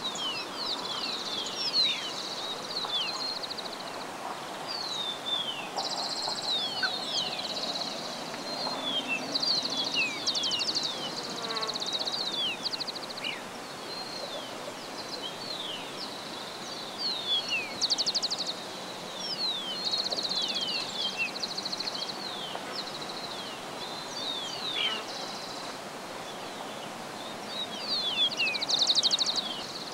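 Several small birds calling at once: many quick downslurred whistles with bursts of fast trills, loudest near the end, over a steady high thin tone.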